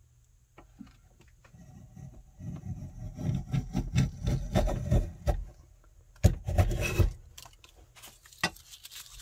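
Stanley No. 9 1/4 cast-iron block plane cutting shavings off a figured maple board: a run of short, quick strokes a couple of seconds in, then one longer, louder stroke about six seconds in, followed by a few light clicks.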